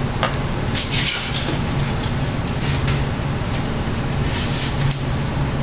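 Steady background hum and hiss with a low droning tone, broken by a few short rustling and handling noises as foam model parts and a glue tube are handled.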